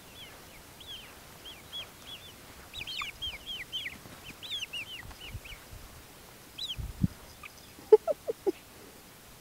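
Young Barnevelder chicks, about six and a half weeks old, peeping: many short cheeps, each falling in pitch, coming several a second at the busiest. About eight seconds in there is a quick run of four short sounds, lower and louder than the cheeps.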